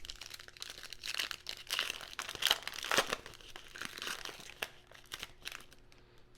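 Foil wrapper of a trading-card pack crinkling and tearing as it is opened and handled, a dense run of crackles and sharp crinkles that eases off near the end.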